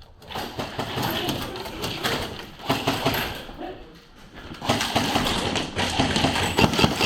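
Airsoft guns firing in rapid runs of sharp cracks, starting about five seconds in. Voices and movement are heard underneath.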